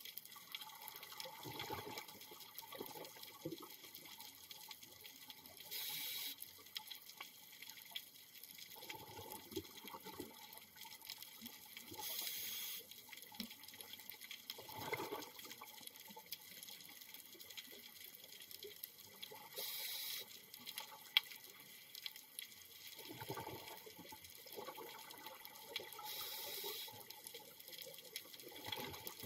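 Scuba diver breathing through a regulator underwater: a short hiss of inhalation about every six to seven seconds, each followed a few seconds later by a gurgle of exhaled bubbles. One sharp click sounds a little past the middle.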